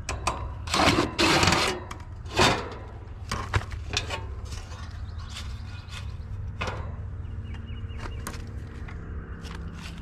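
Sheet-metal access panel of a heat pump outdoor unit being taken off. There are loud scraping and rattling sounds in the first two and a half seconds, then scattered light clicks and taps.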